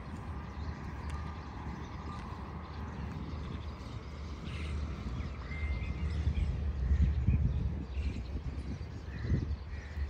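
Park ambience: a steady low rumble, louder for a few seconds in the middle, with a few short bird calls.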